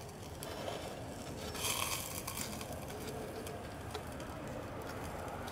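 Handheld gas torch flame hissing steadily while it heats freshly poured lead in a mould on a bench vise, briefly louder about two seconds in.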